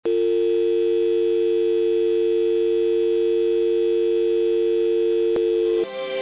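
Steady electronic off-air test-card tone, two notes held together in the pitch pair of a North American telephone dial tone. There is a click about five and a half seconds in, then the tone cuts off suddenly and intro music begins.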